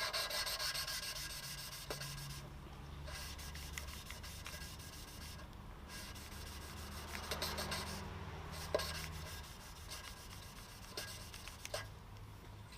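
Intake valve of a Cummins 12-valve diesel head being hand-lapped into its seat with fine lapping compound. It makes a rapid, gritty rubbing as the valve is twisted back and forth against the seat, with short pauses three times.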